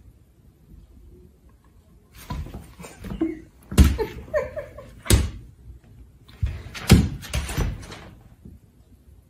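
Thumps and bumps of a kitten and a German Shepherd play-fighting on a wooden floor, with three heavy knocks about a second or two apart in the middle.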